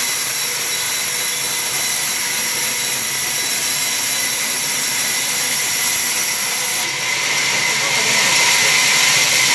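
Sawmill band saw running and cutting through a timber: a steady high hiss with several held high tones, getting a little louder near the end.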